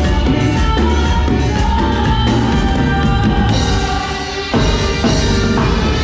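Live band music with a drum kit keeping the beat and held instrumental notes over it. The sound thins briefly just before a loud accent about four and a half seconds in.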